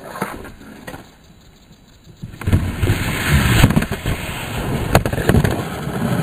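Light taps and scrabbles of a cat running through a cardboard box on a wooden floor. About two and a half seconds in, loud rubbing and knocking starts right against the microphone, with a few sharp knocks, and carries on to the end.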